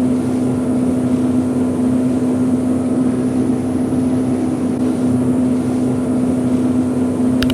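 Boat motor running steadily at speed, a constant-pitched drone with rushing noise and no change in revs.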